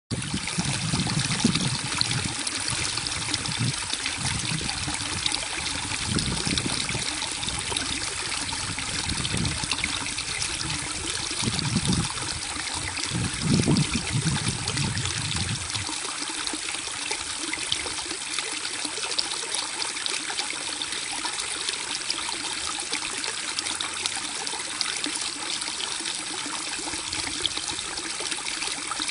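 A small brook babbling and trickling steadily over its bed. Irregular low rumbling is mixed in during the first half and stops a little past halfway.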